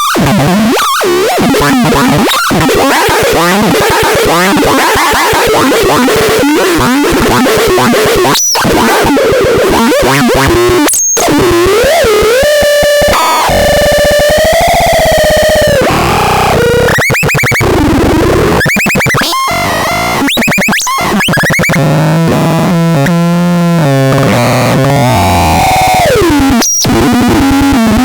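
Loud, chaotic electronic synthesizer noise from the HUDARLENAX: dense layers of tones sliding and warbling up and down over a wash of noise. It cuts out for an instant a few times, and about halfway through settles briefly into a held, wavering tone.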